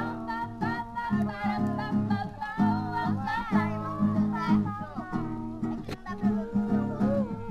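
A voice singing a melody to a strummed acoustic guitar, a Brazilian viola.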